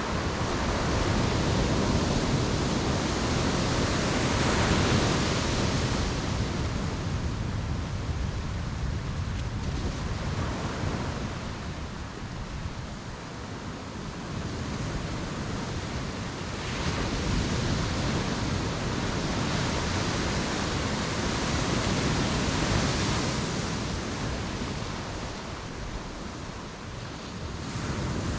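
Ocean surf breaking and washing up the beach, a continuous rush that swells twice into a louder surge and then eases back.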